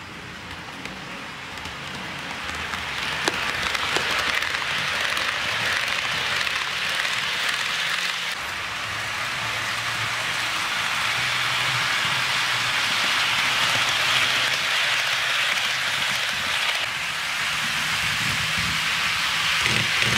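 HO scale model freight train, a diesel locomotive pulling covered hoppers, rolling on the track with a steady rolling hiss of wheels on rails over a low motor hum. It grows louder over the first several seconds as the train nears, with a couple of sharp clicks about three and four seconds in.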